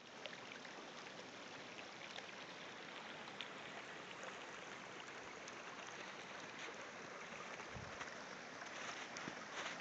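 Steady rush of a small stream flowing between snow-covered banks, with a few faint clicks.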